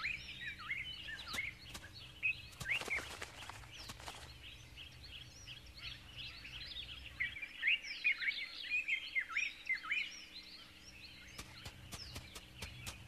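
Many small birds chirping and twittering in short rising and falling calls, busiest in the second half, over a faint steady low hum, with a few soft clicks.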